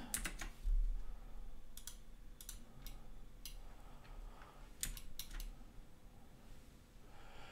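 Scattered clicks of a computer mouse and keyboard, about a dozen spread irregularly with a few close pairs, and a dull low bump about half a second in.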